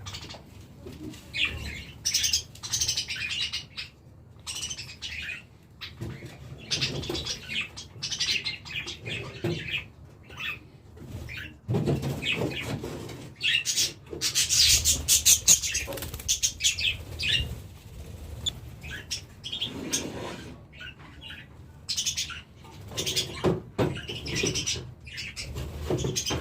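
Caged birds chirping, with wings flapping and rustling at irregular moments, loudest about midway.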